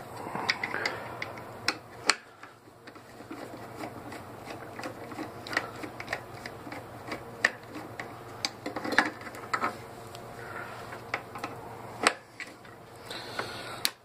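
Screwdriver working a screw on a Bell & Howell 8mm projector's metal body: irregular small clicks and scrapes of the tool against metal, with two sharper knocks about two seconds in and near the end. A faint low hum runs underneath.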